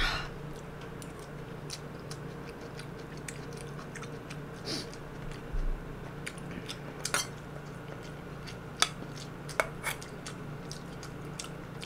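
Cutlery clinking and tapping against a small bowl now and then while food is scooped and eaten, over a steady low hum.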